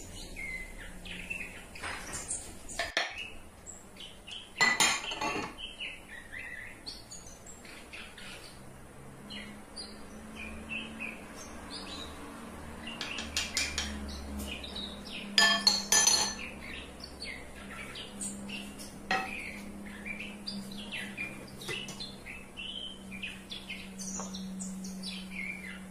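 Metal utensil clinking and scraping against a stainless steel saucepan as onions and potatoes are fried. It comes as a run of short knocks, with louder clatters about five seconds in and again around sixteen seconds.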